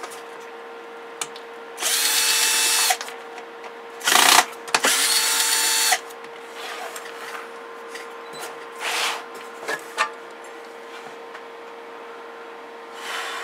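Power screwdriver backing out a CB radio's cover screws: two runs of about a second each, the motor whine rising as it spins up and dropping as it stops, with a short loud rattle between them. Lighter knocks and handling sounds follow as the cover is lifted off.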